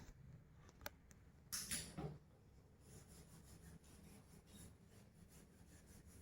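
Near silence, broken by a brief rustle of hands about one and a half seconds in and a few faint clicks. This fits the gloves coming off and the hands being rubbed clean.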